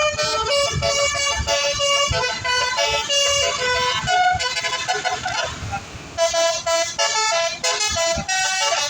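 Basuri telolet horn on a bus playing a quick tune of stepped multi-note chords. It breaks off for about a second near the middle, where a hiss is heard, and then the tune starts again.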